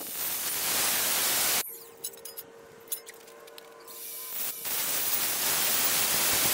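Angle grinder cutting through thin galvanized steel channel: a loud, hissing cut for about a second and a half, then the grinder running with a steady whine and no load, then cutting again from about four and a half seconds in.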